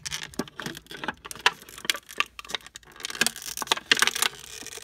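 Clear plastic packaging crackling, with many quick, irregular sharp clicks, as hands work Beyblade parts out of it.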